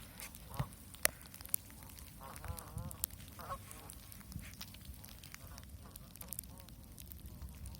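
Waterfowl calling: a run of short, arched calls bunched a little over two seconds in, with scattered sharp clicks and a low rumble underneath.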